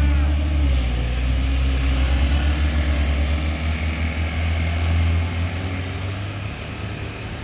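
Light truck's diesel engine pulling hard up a steep climb with a load, a steady deep drone that eases off over the last couple of seconds as the truck moves away.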